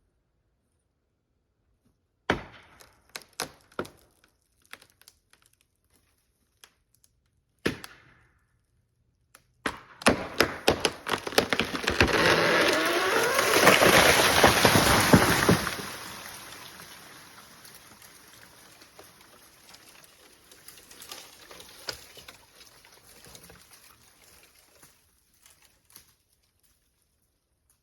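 A felled black walnut tree going over: sharp cracks of the hinge wood breaking, spaced a few seconds apart at first, then a fast run of cracks as it tips, a loud rushing crash through the branches lasting several seconds as it comes down. Fainter snapping and crackling of limbs settling trails off afterwards.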